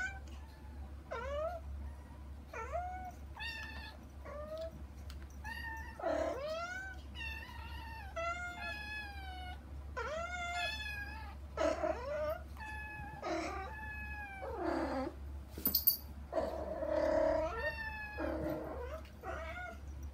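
Kittens mewing over and over, short high-pitched calls that rise and fall, about one a second, calling to get to their mother cat. A few longer, lower calls come about three-quarters of the way through.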